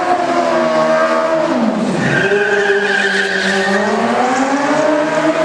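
Highly modified Opel stunt car with a 1300 cc motorcycle engine, revving as it drives, its pitch rising and falling. The pitch drops sharply about two seconds in and then climbs again, with a brief tyre squeal as the car turns.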